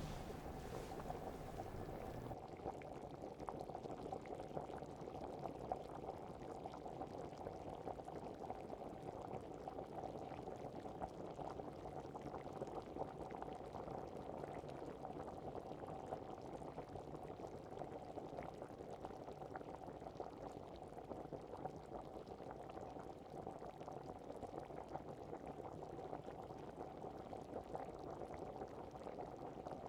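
A pot of liquid boiling steadily and faintly, an even bubbling with many small pops.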